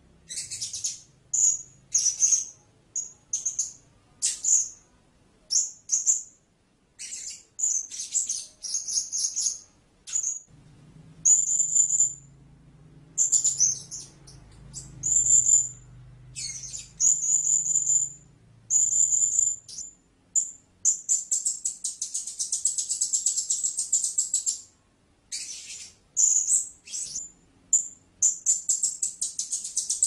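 Blue-crowned hanging parrot giving short, very high-pitched chirps, about two a second. Twice the chirps run together into a fast, continuous twittering: once about two-thirds of the way through, and again near the end.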